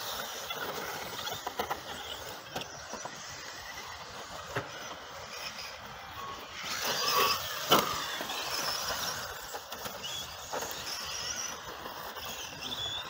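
Radio-controlled model rally cars running on a dirt and grass track: a steady motor whine with tyres scrabbling over the surface, swelling louder as a car passes close about seven seconds in.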